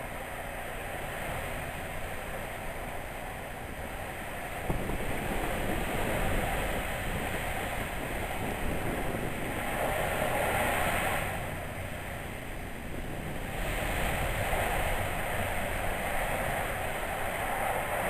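Wind blowing on the camera microphone: a steady rushing noise that swells around the middle, drops back briefly, then rises again.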